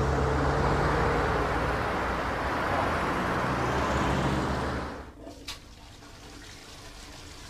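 Steady road traffic and vehicle engine noise. About five seconds in it cuts off abruptly to faint, quiet room tone.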